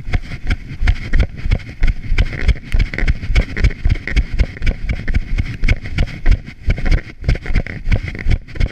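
A runner's footsteps on a dirt forest trail, heard from a camera carried by the runner: a steady beat of heavy thuds about three a second.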